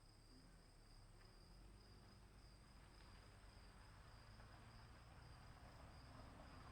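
Faint crickets trilling steadily at night, two high-pitched unbroken trills.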